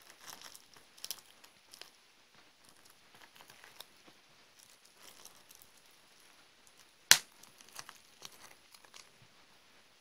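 Clear plastic film crinkling and tearing as tweezers and fingers pick at and squeeze green blobs on a mock acne-extraction pad, with scattered small crackles. One sharp pop about seven seconds in as a squeezed blob bursts.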